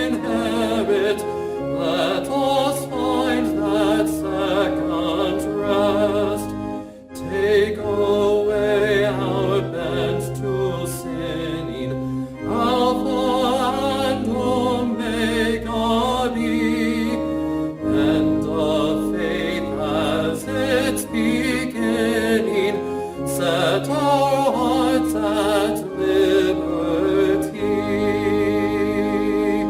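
Church music: singing with a wavering, vibrato tone over held low accompaniment notes, with a brief dip around seven seconds in.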